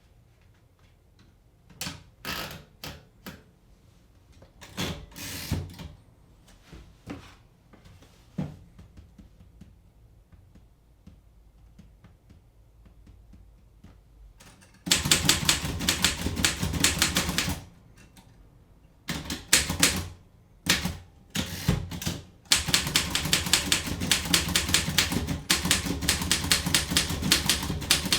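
Typewriter keys being struck: a few scattered keystrokes at first, a pause of several seconds, then fast, dense runs of typing with short breaks in between.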